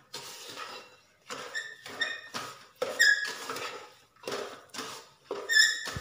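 Wooden spatula stirring a wet mix of grated carrot, sugar and milk in a pressure cooker pan, in scraping strokes about two a second. Several short high squeaks come from the spatula rubbing the pan, the loudest about three seconds in and again near the end.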